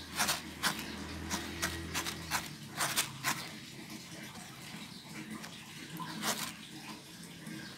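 Fingers raking and picking through uncooked rice grains on a woven bamboo winnowing tray (nyiru), sorting out unhulled grains and grit: a run of short dry rustles in the first three seconds and one more about six seconds in. A faint low hum stops about two seconds in.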